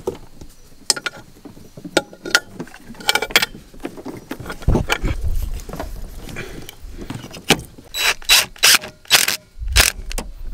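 Tools and hose fittings clicking and scraping against metal as heater hoses and their clamps are worked off in an engine bay. There are irregular clicks throughout, and a cluster of louder clicks and rasps near the end.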